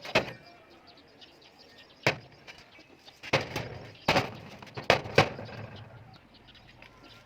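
Several sharp knocks or clanks at irregular intervals, each ringing briefly.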